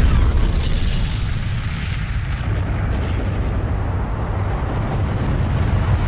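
Nuclear explosion sound effect: a long, deep rumble of the blast that eases slightly in the first second or two, then holds steady.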